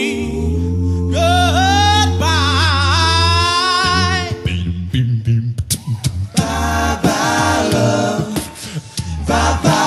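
Male a cappella group singing: a sung bass line holds low notes under a wavering lead voice. About four and a half seconds in, the voices break into short, choppy chords over sharp clicks of vocal percussion.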